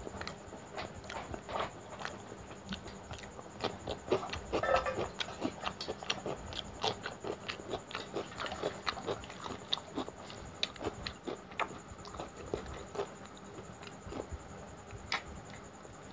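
Close-miked eating sounds: wet chewing and lip smacking, a dense run of short irregular clicks, as curry-soaked luchi and cucumber are eaten by hand. The smacking is loudest and thickest about four to five seconds in.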